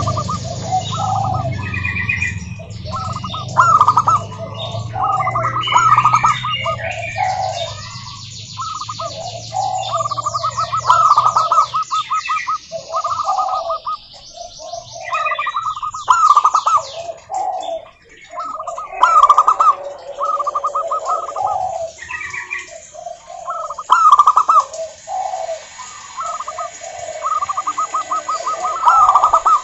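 Zebra doves (perkutut) cooing over and over, their quick stuttering coo phrases overlapping one another, with higher thin chirps of small birds among them. A low rumble sits under the first several seconds.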